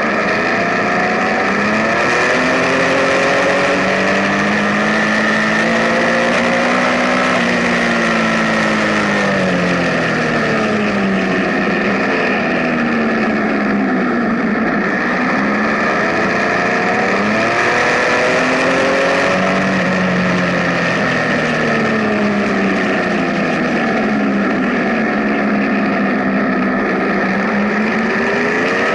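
Benelli TnT 1130's inline three-cylinder engine running under way, its revs rising and falling several times as the bike accelerates and slows, over a steady rushing noise.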